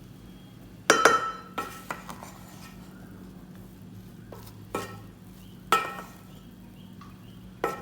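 Metal utensil clinking and scraping against a cooking pot: a handful of sharp, ringing clinks at irregular intervals, the loudest cluster about a second in, over a steady low hum.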